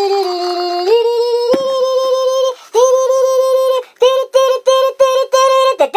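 A high, synthetic-sounding singing voice carries a simple tune in long held notes, then switches to short repeated notes about three a second in the last two seconds.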